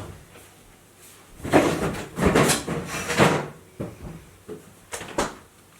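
Refrigerator bins and shelves being handled while food is loaded: a stretch of sliding and knocking plastic about a second and a half in, then two short sharp knocks near the end.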